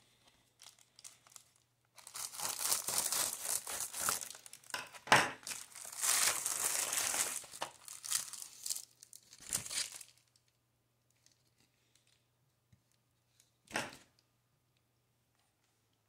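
Plastic bubble mailer being torn open and crinkled by hand, starting about two seconds in and lasting about eight seconds, with one short rustle near the end.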